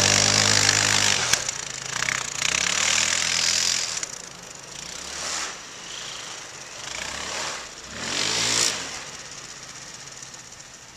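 Apache 4x4 quad's engine revving hard as it ploughs through deep snow, then rising and falling in several shorter bursts, growing fainter as the quad pulls away.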